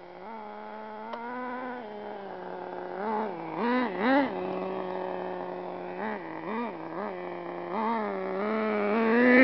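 Traxxas Stampede nitro RC truck's small two-stroke glow engine running with a steady high buzz, blipped in short revs about three to four seconds in and again between six and eight seconds. It grows louder near the end as the truck comes close.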